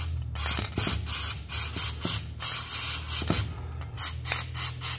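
Aerosol garage door lubricant sprayed in a quick series of short squirts, about a dozen short hisses two or three a second, applied to the door's cable drum.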